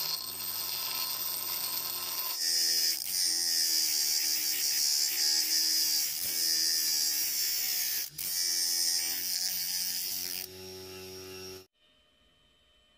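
Bench grinder running, with a metal bar pressed against its abrasive wheel: a harsh high grinding hiss from about two seconds in, breaking off briefly near eight seconds, over the motor's steady hum, which wavers in pitch as the wheel is loaded. The sound cuts off suddenly near the end, leaving near silence.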